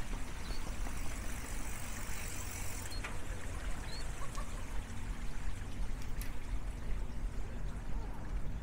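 Steady outdoor rushing noise with a low rumble, its brighter hiss easing about three seconds in, and a few faint bird chirps.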